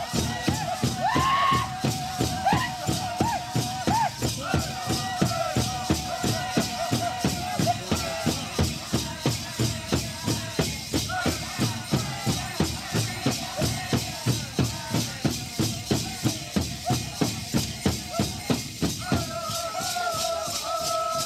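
Gourd Dance song: a steady, even drumbeat with the dancers' gourd rattles shaking in time. High held singing voices ride over the drum at the start and again near the end.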